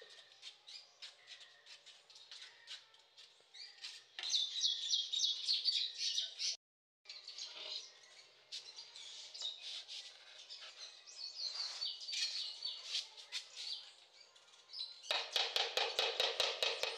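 Birds chirping throughout, over the scraping and clicking of a steel trowel spreading cement mortar on the back of a wall tile. Near the end comes a quick run of taps, the trowel working against the tiles set on the wall.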